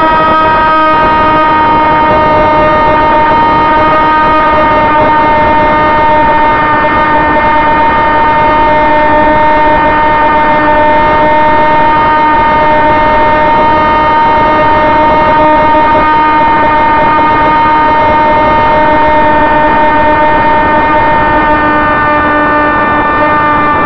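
Electric motor and propeller of a Sonicmodell AR Wing RC flying wing, heard from its onboard camera in flight: a loud, steady, multi-toned whine that drifts slightly lower in pitch, over a rushing noise of air on the microphone.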